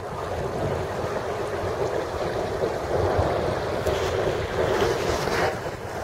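Small waves washing onto a rocky shore, with wind blowing across the microphone, and a few brief rustles near the end.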